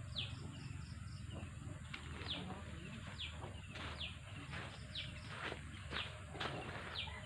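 A bird calling over and over with short, high chirps that fall in pitch, about two a second, over faint outdoor background noise.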